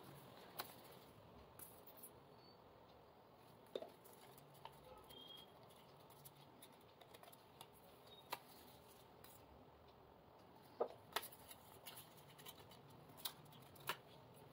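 Faint, scattered clicks and rustles of stiff colour-paper petal pieces being picked up and set down on a table, with a small cluster of them near the end, over near-silent room tone.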